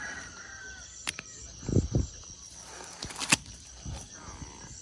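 Night outdoor ambience of steady high insect chirring. Faint chirps come in the first second, with a few sharp clicks and short low thuds of handling about a second and two seconds in.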